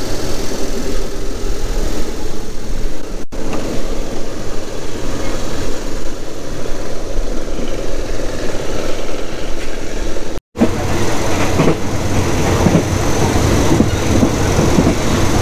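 Diesel passenger train running, a steady engine drone with rail noise heard from on board, broken by two brief gaps near 3 and 10 seconds in.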